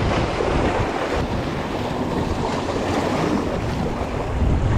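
Wind buffeting the microphone over the wash of water, a steady rough rumble, with a sharp click right at the end.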